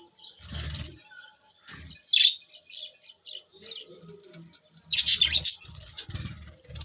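Budgerigars chirping and chattering in quick, short chirps, mixed with a few low muffled bumps, the loudest run coming about five seconds in.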